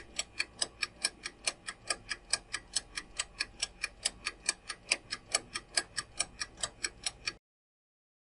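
Countdown-timer clock-ticking sound effect, about four even ticks a second, which stops suddenly a second before the end as the timer runs out.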